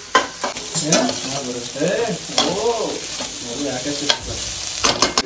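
Slotted metal spoon stirring and scraping against a stainless steel pan of onion, capsicum and sweet corn frying in butter, with a steady sizzle and repeated clinks of metal on metal.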